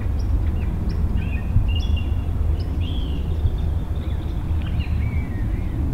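Small birds chirping and whistling over and over, with short quick notes and a few longer whistled calls, over a steady low rumble.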